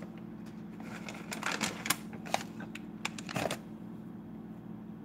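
Plastic bag of shredded cheddar crinkling and rustling as it is shaken out and handled, in several short spells over the first three and a half seconds, then quieter. A steady low hum runs underneath.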